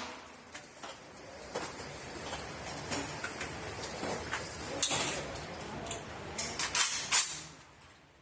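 Steady high-pitched insect chirring, then a handful of sharp clicks about six to seven seconds in.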